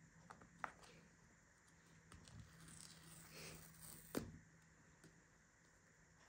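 Faint handling of a cardboard phone box: a fingernail scrapes and picks at the paper pull tab of the box's seal, with a few soft clicks and a sharper click just after four seconds in.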